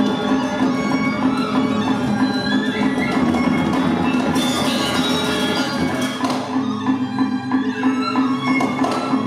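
Balinese gamelan music playing, dense layered metallic tones over a steady low hum; the upper layers thin out for a few seconds about two-thirds through.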